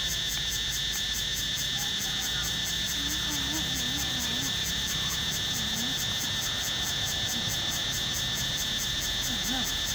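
Steady chorus of insects: a constant high shrill drone with a fast, even pulse.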